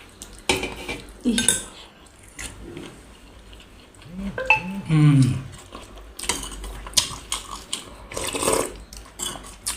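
Cutlery clinking and scraping against plates and bowls as people eat, in scattered short knocks with a few louder bursts, and a brief low murmur about halfway through.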